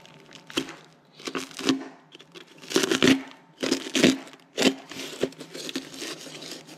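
Utility knife slitting the packing tape of a tape-wrapped parcel, the wrapping crinkling and tearing in a string of irregular rips, loudest about three and four seconds in.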